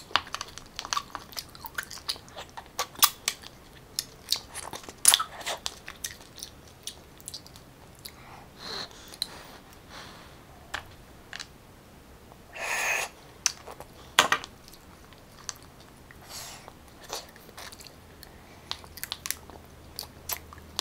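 Close-up chewing and biting of butter-garlic stir-fried sea snail meat (spotted babylon and ốc tỏi snails), with many sharp irregular clicks of snail shells and toothpicks, and one brief louder hiss-like burst about thirteen seconds in.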